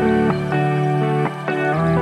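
Background music of plucked guitar notes over a sustained bass line.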